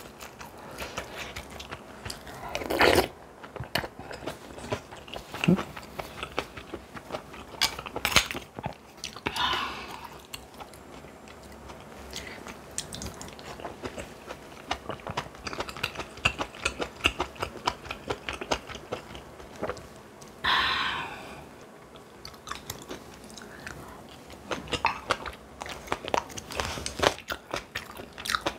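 A person eating: crunchy bites and steady chewing, with many small clicks and crackles from the food and mouth. A few louder sudden sounds break in, around three seconds, around eight seconds, and a longer one about twenty seconds in.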